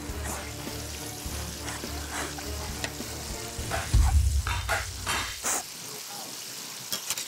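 Hand-broken potato pieces frying in hot oil, a crackling sizzle, over background music with a loud low boom about four seconds in.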